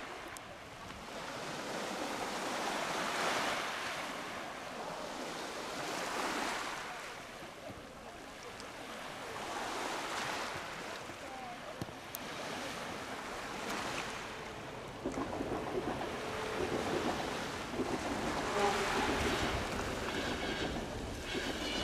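Sea waves washing onto shore rocks, swelling and falling back every few seconds. A faint steady hum with a few light clicks joins in during the second half.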